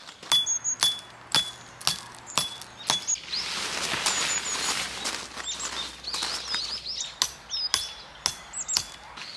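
A metal tent peg being hammered into gravel ground: sharp ringing clinks about two a second, six in the first three seconds and four more near the end. Birds chirp in between.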